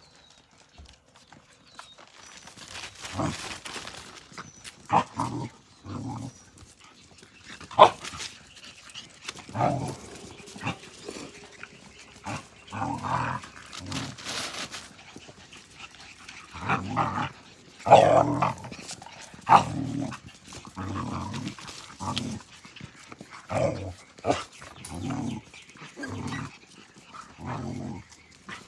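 Australian Cattle Dog puppies playing, with short, irregular yips and growls coming in scattered bursts, loudest about 8 and 18 seconds in.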